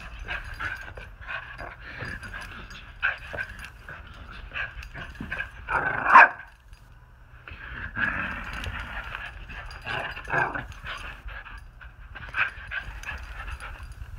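Small dog playing rough, giving out a run of short growls, yips and barks. The loudest call comes about six seconds in, and a longer rough growl follows from about eight seconds.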